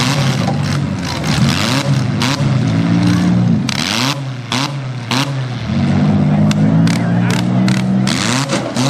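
Demolition derby cars' engines revving hard, the pitch climbing and falling back again and again, with frequent sharp cracks.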